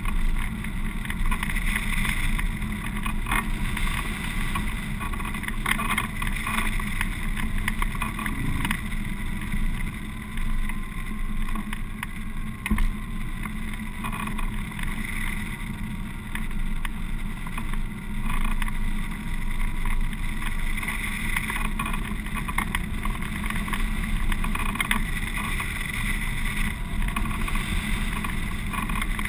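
Steady rush of airflow over the microphone of a camera mounted on a hang glider in flight, with a single sharp knock about halfway through.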